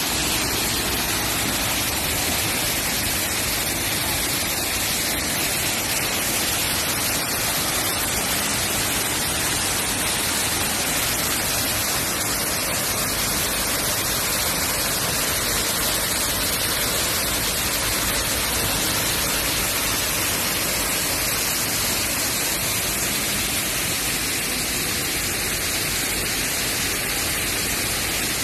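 Water pouring and splashing down an ornamental garden waterfall into a pool: a steady, even rush with a bright hiss and no pauses.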